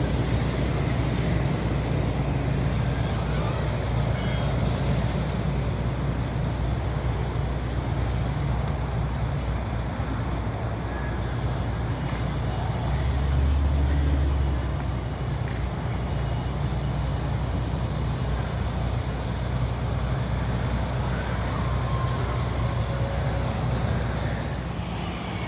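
Steady low rumble of a moving vehicle, with thin steady high whines above it, briefly louder about halfway through.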